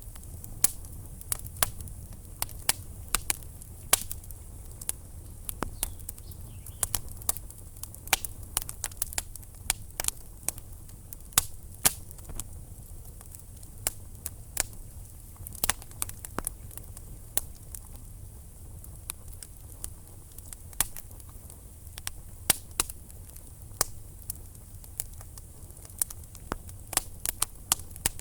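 Wood fire in a fireplace crackling: irregular sharp pops and snaps from the burning logs over a low steady rumble of the flames.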